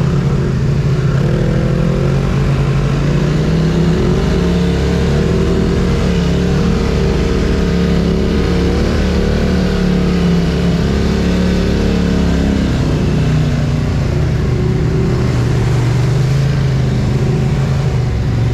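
Polaris ATV engine running steadily under moderate throttle while riding, heard close up from the handlebars, with tyre and trail noise over it.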